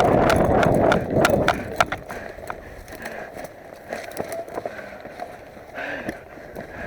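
Running footsteps and rattling gear, with a loud rumble on the microphone for about the first second and a half, then quieter, with scattered sharp clicks and steps.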